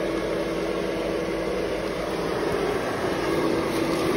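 An inflatable black cat decoration's newly fitted blower fan running steadily: a continuous rush of air with a steady hum.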